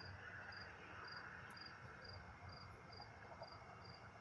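A cricket chirping faintly and evenly, about two short high chirps a second, over a low background hum.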